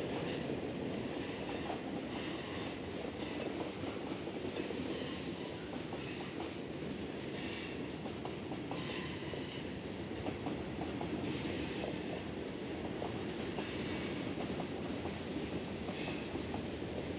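Freight cars rolling by at speed: a steady rumble of steel wheels on rail, with scattered clicks and short, high-pitched wheel squeals every second or so.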